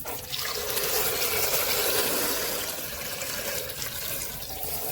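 Water running steadily from a kitchen faucet into a sink, splashing through a stick vacuum's dust container as it is rinsed out.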